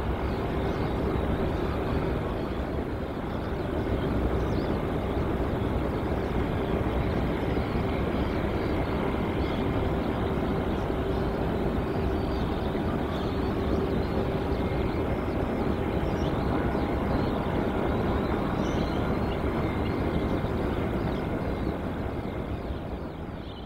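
Steady drone of a distant light propeller aircraft's piston engine, holding one pitch, over a constant wash of outdoor noise; it fades out near the end.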